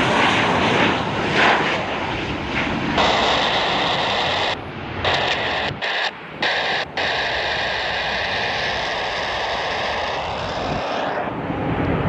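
Bombardier Global Express XRS business jet's twin turbofan engines running at takeoff power: a loud, steady rush of jet noise with a steady whine through it. A few brief dropouts come about five to seven seconds in.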